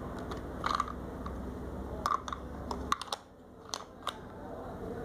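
Light plastic clicks and clacks from a brick-built toy pistol, an Ausini MP-45 assembled from Lego-compatible bricks, as it is turned over and handled in the hands. There are several separate clicks, most of them in the middle of the stretch.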